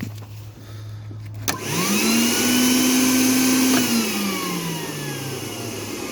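Tennant 5680 floor scrubber's electric motors switching on with a click about a second and a half in. A rising whine comes up to speed and holds, then its pitch sinks after a couple of seconds while a steady rushing, like a vacuum motor, keeps running. The machine now starts, its charger-interlock wiring corrected.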